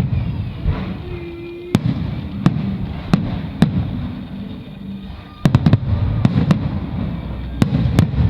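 Aerial fireworks shells bursting in a string of sharp bangs over a low rumble, with a quick cluster of bangs about five and a half seconds in.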